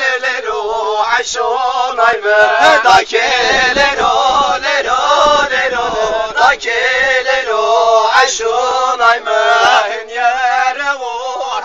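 A group of men singing a Zazaki halay folk song together in a chant-like unison, with a few sharp knocks or claps among the voices.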